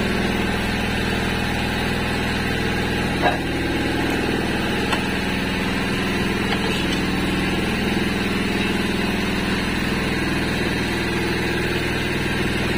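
Steady drone of a small engine running at idle aboard a fishing boat, with one brief knock about three seconds in.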